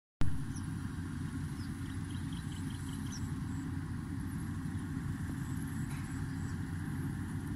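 Steady low drone of a rice combine harvester's engine working the field, starting with a short click. Faint high chirps sound over it.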